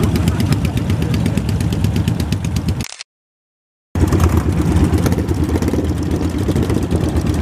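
Custom Yamaha SR400/SR500 single-cylinder motorcycles idling together, a rapid, even thumping. The sound cuts out completely for about a second near the middle, then the engines are heard again.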